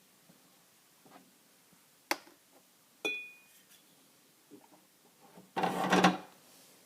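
Household handling sounds: a sharp click about two seconds in, a short ringing clink a second later, a few light knocks, then a louder noisy burst lasting under a second near the end.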